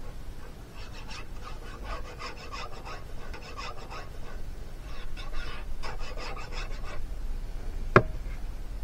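Scratchy rubbing of a fine-tip glue bottle and fingers against cardstock as glue is run along the edge of a paper strip, in two spells of quick strokes. A single sharp tap near the end.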